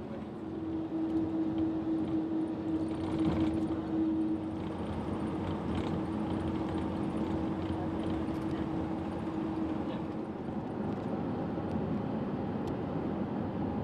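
Road traffic noise: a steady rush of vehicles, with a constant hum that stops about ten seconds in.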